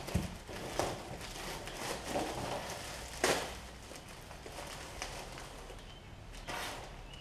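Scattered rustling and light knocks of someone handling parts off to the side, with one sharper knock a little over three seconds in.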